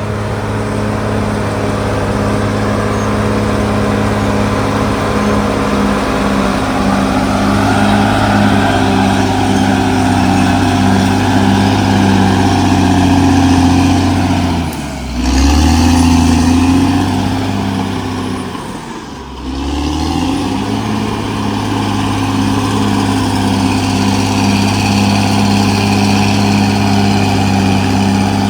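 CAT D6R XL bulldozer's diesel engine running steadily at working revs. Its note dips and recovers twice, about halfway through and again a few seconds later.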